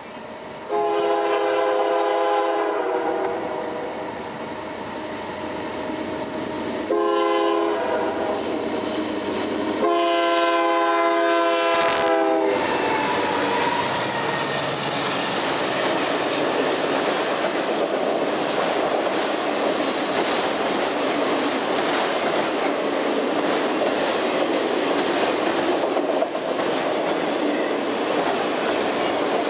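Diesel freight locomotive's multi-chime horn sounding for a grade crossing: a long blast, a short one and another long one. Then the train passes close by, a steady loud rumble of rail cars rolling over the crossing with repeated wheel clicks.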